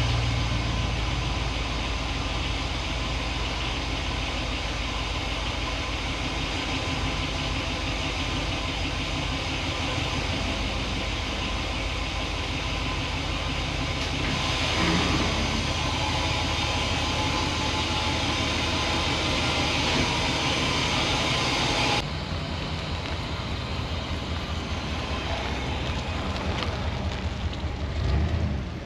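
A car on the move: steady engine and road noise with a low hum. About 22 s in the sound changes abruptly, becoming quieter and duller.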